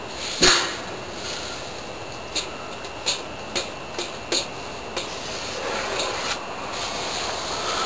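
Hands handling a homemade vacuum former. A sharp knock comes about half a second in, then a run of light clicks and taps about one every half second, and a soft rustle near the end.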